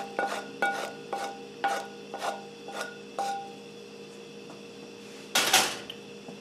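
A wooden spatula knocks and scrapes against a metal skillet as food is pushed out of it. The pan rings briefly at each knock, about three a second, and the knocks thin out after about three seconds. About five seconds in there is one short, louder scraping rush.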